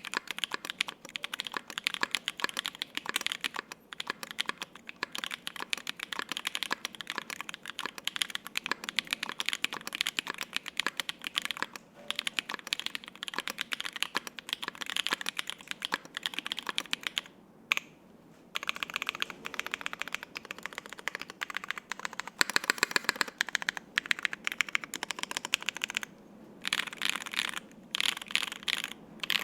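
Continuous typing on a custom 60% mechanical keyboard (ai03 Polaris, gasket-mounted) with lubed Holy Panda tactile switches on a brass plate and GMK double-shot ABS keycaps: a steady, fast stream of keystrokes. The typing stops briefly a little past halfway, with one lone sharp keystroke in the gap, and again near the end.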